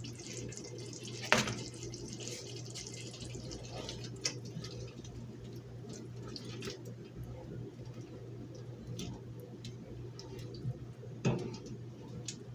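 Pot of potatoes simmering in stew, with scattered small pops and ticks over a steady low hum; a sharp knock of a utensil on the pot about a second in and another near the end.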